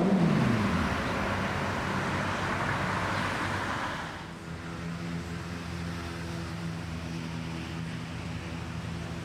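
Highway traffic passing: a vehicle's engine note drops in pitch in the first second as it goes by, tyre hiss swells and then falls away about four seconds in, and a steady engine hum continues after.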